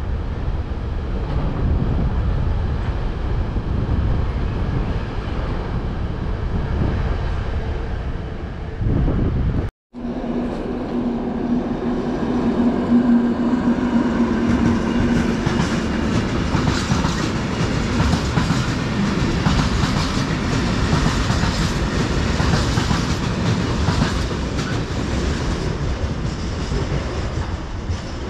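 Freight train passing close by, a steady rumble of wagons on the track. After a short break about ten seconds in, a train rolls past with repeated clattering of wheels over rail joints, and a steady low hum for a few seconds.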